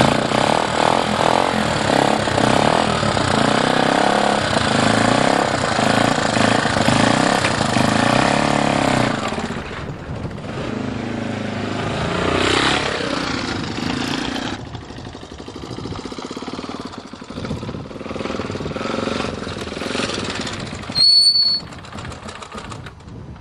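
Single-cylinder Honda enduro motorcycle engine running on choke just after its first cold start of the year, loud and revved unevenly for the first several seconds, then dropping to a quieter idle about ten seconds in, with one more blip of throttle partway through. A brief high-pitched tone sounds near the end.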